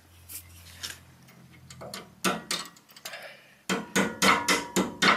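Claw hammer tapping a washer onto a steel pin of a plow mount bracket, metal on metal: a few spaced taps, then a quick run of about seven taps near the end.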